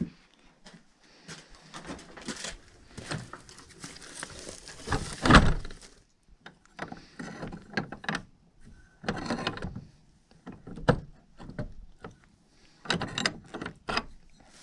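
Old wooden door being handled and locked with an old metal key: scraping, knocking and rattling of the key and lock, with a single loud thump about five seconds in.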